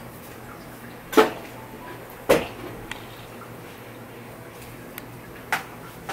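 Three short, sharp knocks, about one, two and five and a half seconds in, with a few fainter ticks, over a low steady room hum.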